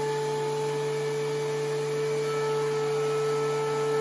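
DeWalt DW735X thickness planer running and planing a hardwood board, a loud, steady whine from its motor and three-knife cutterhead over a rushing noise.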